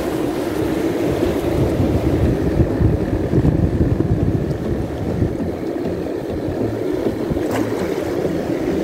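Wind blowing on the microphone over the steady wash of surf on a shallow rocky reef; one faint click near the end.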